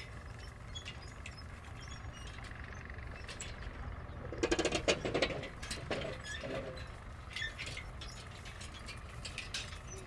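Metalwork construction-site background: a steady low rumble with scattered metallic clinks and knocks, and a louder, briefer burst about halfway through.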